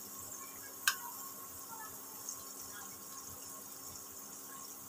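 Garlic pakoras shallow-frying in oil on low heat: a faint, steady sizzle with small crackles, and one sharp tap of the metal spatula on the pan just under a second in.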